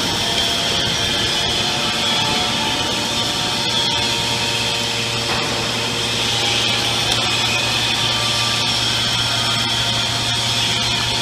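Hydraulic scrap car baler running, its two electric motors and hydraulic pumps giving a steady mechanical drone. A low hum joins about two seconds in.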